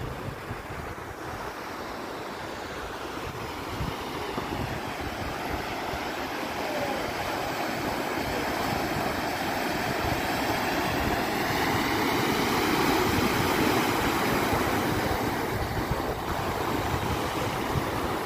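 Vehicle tyres driving through floodwater on a road, a steady hissing rush of spray that swells to its loudest about two-thirds of the way through and then eases, with wind buffeting the microphone.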